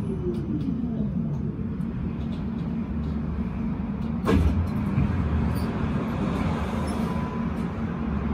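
Interior running noise of a tram slowing: the electric drive's whine falls in pitch in the first second or so. About four seconds in there is a sharp clunk as it comes to a stop, followed by a steady low hum while it stands.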